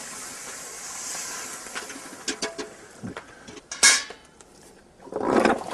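Steam hissing off a red-hot iron wheel tyre as water is poured on to quench it, shrinking the tyre tight onto the ash felloes. Scattered metal clinks and one sharp clank about four seconds in, then a louder rush of noise near the end.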